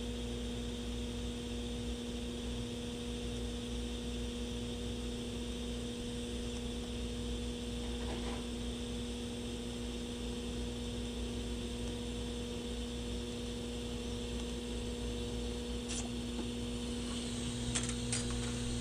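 TIG welding arc on stainless steel tubing: a steady electrical hum and hiss from the torch and welder. A few sharp clicks come near the end as the weld stops.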